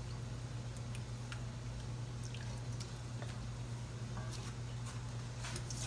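Thick tomato and ground-beef sauce being stirred with a wooden spoon in an enamelled cast-iron pot, with faint scattered pops and squelches as it simmers, over a low steady hum.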